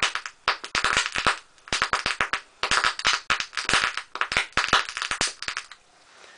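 HHO (oxyhydrogen) gas bubbles on the surface of a homemade electrolysis cell igniting at a lighter flame: rapid strings of sharp pops in quick clusters, stopping near the end.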